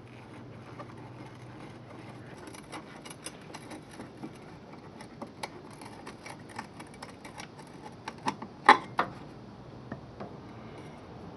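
Irregular light metallic clicks and taps from hand tools and fasteners as the old side step is unbolted, with three sharper knocks a little past the middle.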